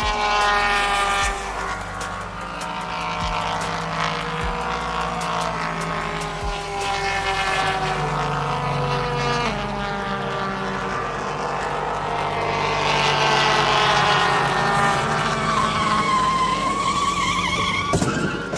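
Race-car engine sound effects revving and passing, rising and falling in pitch, dubbed over toy cars being pushed along. Near the end a tire squeal, then a sharp crash as one car is rammed into another.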